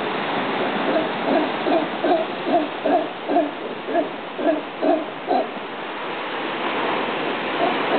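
Howler monkey calling in a rhythmic run of about a dozen short calls, roughly two and a half a second, that stops about five seconds in. A steady hiss underlies it.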